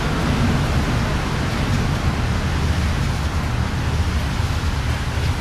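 Steady rushing noise with a heavy low rumble, typical of wind buffeting the camcorder's microphone outdoors.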